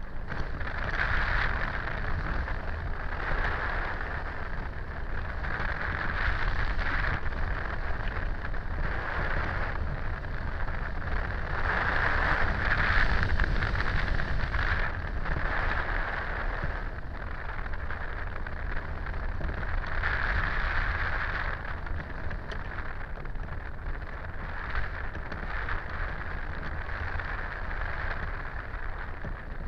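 Wind rushing over the microphone of a camera mounted on a hang glider in flight: a steady hissing rush over a low rumble, swelling and easing every couple of seconds as the airflow changes.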